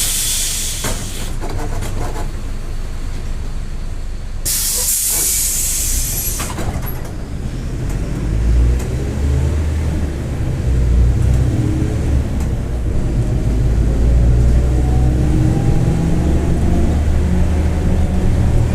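Mercedes-Benz OF-1721 BlueTec 5 city bus from onboard: two loud bursts of compressed-air hiss from its air system, at the start and about five seconds in, then the diesel engine pulling away and getting louder. From about twelve seconds in a whine climbs with speed, the differential growl the bus is known for.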